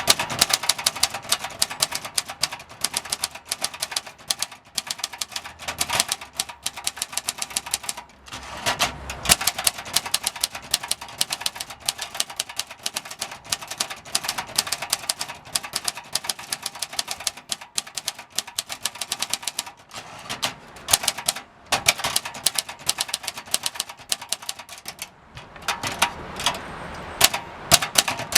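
1969 Brillant Junior manual typewriter being typed on: a fast, uneven run of sharp key and typebar clicks, several a second, with a few short pauses. The mechanism is completely worn out.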